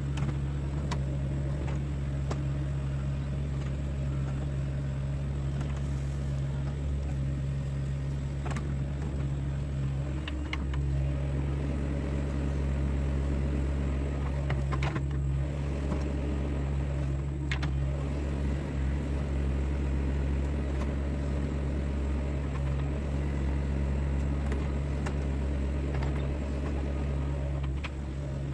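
Sunward mini excavator's diesel engine running steadily, a little louder from about ten seconds in, with a few sharp knocks.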